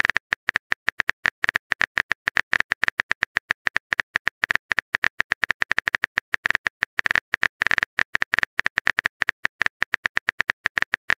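Typing sound effect: a rapid, uneven run of keyboard clicks, several a second, as a chat message is typed out.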